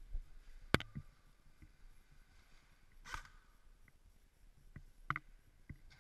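A few sharp clicks and knocks, muffled by a waterproof camera housing: the loudest a single sharp click under a second in, a short rustle about three seconds in, and a quick double knock around five seconds.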